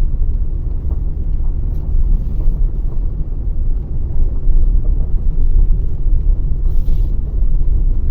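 Steady low rumble of a vehicle on the move: road and engine noise, with wind on the microphone, while driving along a road.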